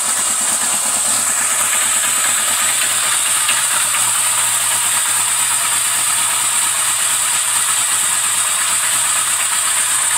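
Yamaha XS1100's air-cooled inline-four engine idling steadily just after starting, running without the choke, with a steady hiss over the engine note.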